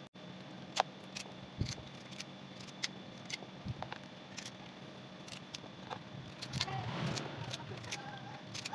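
Scattered light clicks and knocks of kitchen utensils and cookware being handled, with a denser stretch of rustling and clattering about seven seconds in.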